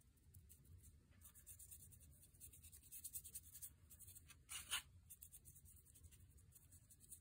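Faint scratching and dabbing of a small paintbrush working watered-down black acrylic paint into the cracks and holes of rough cast-cement teeth, with one louder scrape a little before five seconds in.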